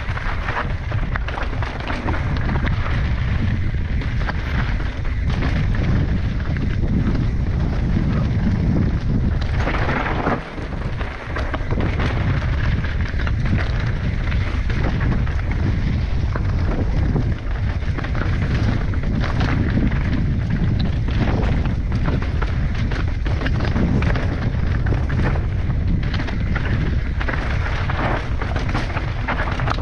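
Wind buffeting a helmet-mounted camera's microphone during a fast mountain-bike descent, with the tyres running over dirt and rock and the bike rattling in frequent short knocks over rough, rocky ground.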